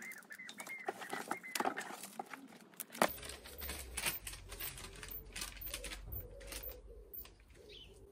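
Handling noises: rustling with many scattered clicks and light knocks, and a sharper knock about three seconds in, after which a low hum runs underneath.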